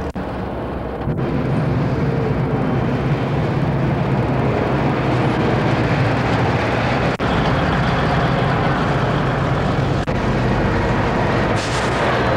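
School buses driving slowly past, a steady low engine rumble that drops out briefly a few times.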